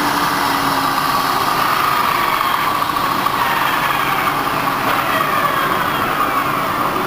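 Sharp geared head engine lathe running at its top spindle speed of 1200 RPM, the headstock gears giving a steady whine over a mechanical hum. Over the last few seconds the gear whine slides down in pitch as the spindle slows.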